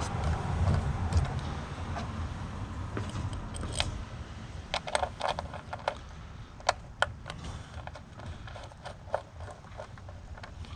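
Irregular sharp clicks and scraping of metal and plastic parts and hand tools being handled as new ignition coils are fitted to the engine, with a low rustling handling noise in the first couple of seconds and a run of clicks in the second half.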